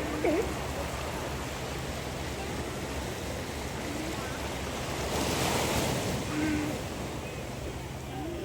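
Ocean surf washing onto a beach, a steady rush with a wave breaking louder about five seconds in, and wind on the microphone.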